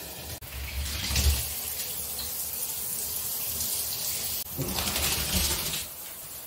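Water running from a bathtub's handheld shower, a steady hiss, with a sharp click about half a second in and another about four and a half seconds in, followed by a louder stretch of knocking and rustling.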